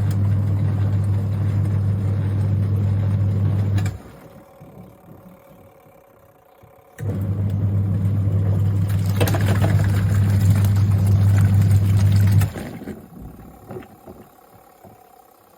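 Twin-tub washing machine's wash motor running with a steady low hum, stopping twice for about three seconds (about four seconds in and again near the end) between spells of running.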